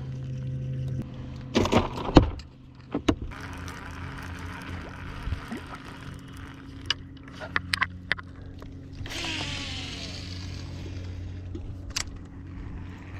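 A boat motor running with a steady low hum, while sharp clicks and knocks come and go, loudest about two seconds in, and a short rush of noise comes about nine seconds in.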